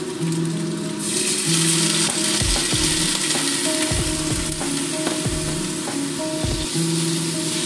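Sliced vegetables tipped into a hot metal wok about a second in, setting off a loud sizzle that carries on as a wooden spatula stirs them, with a few knocks of the spatula against the wok.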